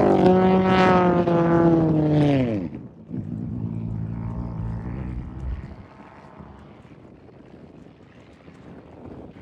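Off-road race vehicle's engine at high revs, a steady high note passing close, then dropping away sharply a little under three seconds in. A quieter engine follows for a few seconds, then only wind.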